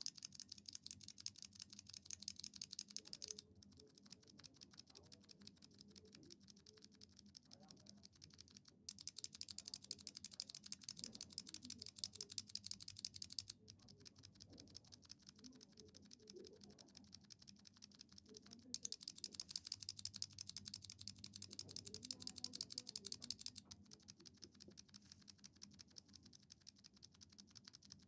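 Fast typing on a KBD67 Lite keyboard with Zealpc Zilent v2 silent tactile switches: soft, muffled keystrokes. The typing comes in stretches of about five seconds that alternate between louder and quieter, setting stock switches against lubed ones.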